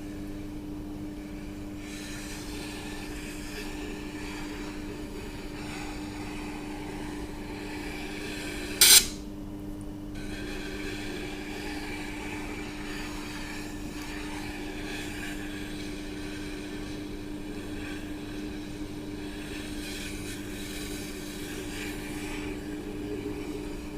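Tormek T8 wet grinder running with a steady hum while a kitchen knife is drawn against its turning grindstone, making a continuous rasping scrape that drops away briefly twice. One sharp click about nine seconds in.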